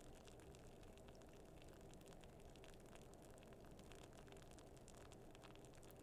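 Faint fizzing of carbonated soda in a freshly opened drink can: a light, steady crackle of tiny bubble pops.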